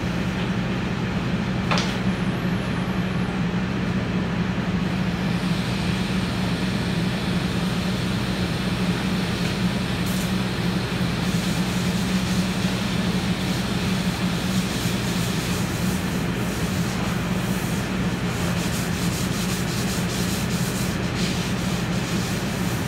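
Restaurant exhaust hood fan running with a steady low hum, over the scrubbing of a hot flat-top griddle with a scouring pad and water, the water sizzling and steaming on the hot steel.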